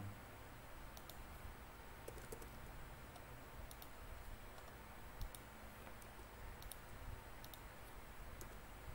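Faint, scattered clicks of a computer keyboard and mouse, a few at a time with short pauses between, as text is typed and formatted.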